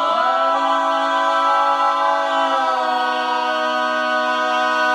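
Four-man male vocal quartet singing a cappella, holding the song's final chord in close four-part harmony. About three seconds in, one of the lower voices moves to a new note while the others hold.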